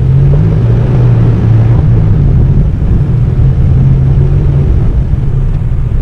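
Toyota Tacoma pickup driving along a dirt trail: a loud, steady low engine drone over a rumble, its pitch shifting slightly a few times.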